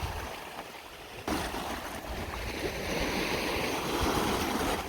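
Water washing over a rocky shore, with wind on the microphone; the sound drops for about a second, then swells back up suddenly.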